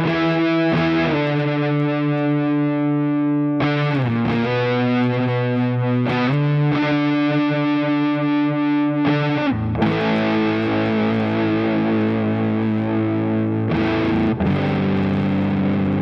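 Electric guitar played through a JOYO Hot Witch Big Muff-style fuzz pedal. It plays long, sustained, heavily fuzzed lead notes with several string bends and vibrato on the held notes.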